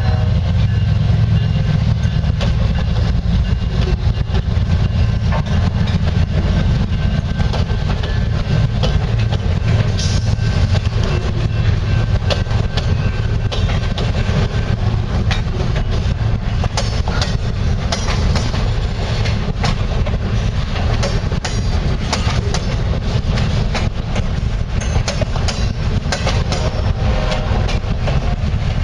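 Ferrosur diesel-electric locomotives running with a train: a steady heavy engine rumble with the clicks and knocks of wheels on the rails, which come thicker in the second half.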